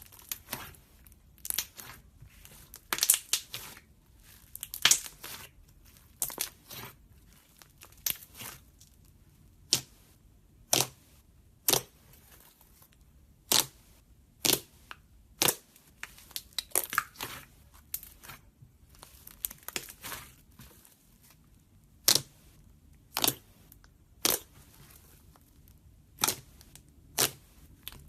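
Slime being squeezed and stretched by hand, making short sharp pops and crackles at an irregular pace of about one or two a second, with a few quick clusters of crackling.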